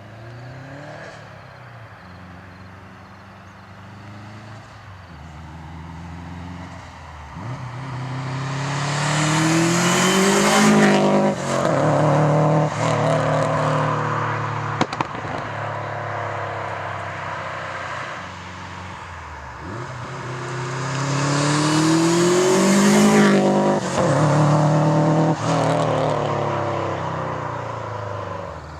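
Turbocharged Subaru Impreza WRX with a flat-four engine and 3-inch exhaust, accelerating hard past twice, its engine note climbing in pitch and loudness to each pass and then falling away. A single sharp crack comes between the two passes.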